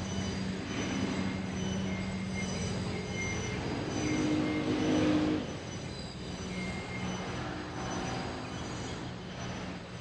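Train passing with its wheels squealing, growing louder to a peak about five seconds in and then dropping away over a steady low hum.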